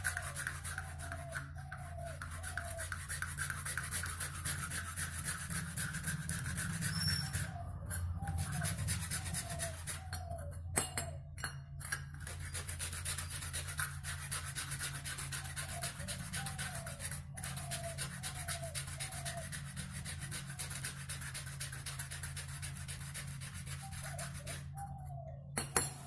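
Sandpaper scrubbing rust off a small steel part of a bike horn in rapid back-and-forth strokes, stopping briefly a few times. A steady low hum runs underneath.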